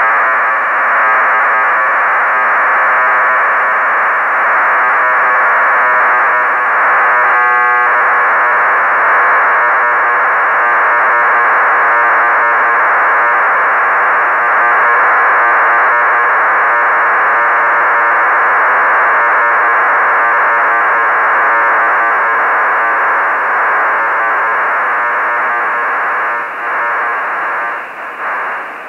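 HuskySat-1's digital telemetry downlink as received through an amateur radio's sideband receiver: a steady, raspy buzzing data signal in hiss, cut off above about 3 kHz. It dips briefly a couple of times near the end.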